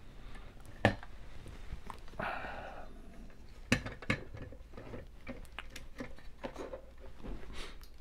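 Metal clanks and clicks of a bench vise being handled and set up on a desk, with a brief scrape about two seconds in and sharp knocks about a second in and near four seconds.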